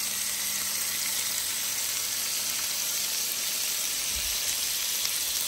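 Pork belly sizzling steadily in its own rendered fat on a tabletop grill plate: an even, continuous frying hiss.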